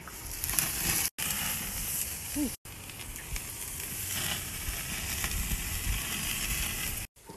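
Raw steaks sizzling on the hot grate of a gas grill: a steady crackling hiss, broken twice by brief dropouts.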